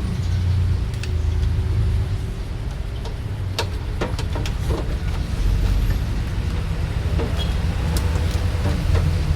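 A car's engine idling steadily, with a few sharp clicks over it.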